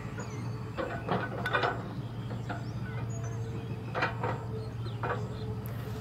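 A steady low hum with a few scattered short knocks and clicks.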